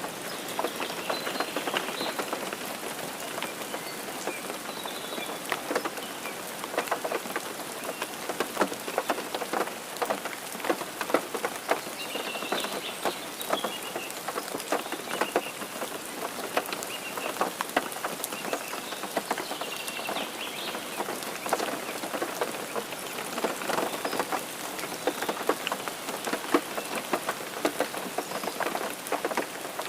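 Steady rain falling, a continuous hiss dotted with many sharp drop hits close by.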